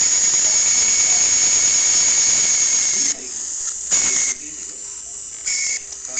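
Small brushed DC motor spinning fast under a speed controller, a steady high whine with hiss. About three seconds in it drops back to a lower speed, with short bursts back to full speed near four seconds and twice more near the end, showing the sealed, submerged controller still responds.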